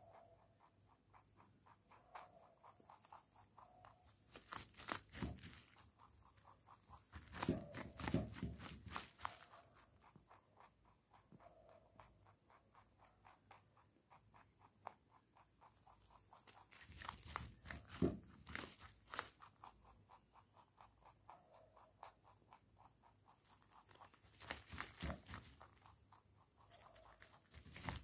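A rabbit chewing a carrot, crunching with rapid fine clicks in spells of a few seconds, with quieter pauses between.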